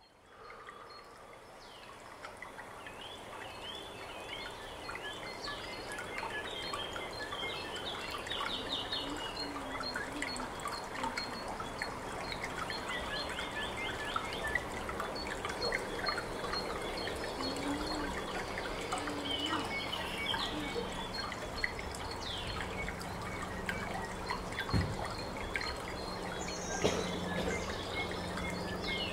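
Sound-art soundscape fading in: a dense texture of trickling and dripping sounds with many short bird-like chirps and calls over it. A low steady hum joins about halfway through.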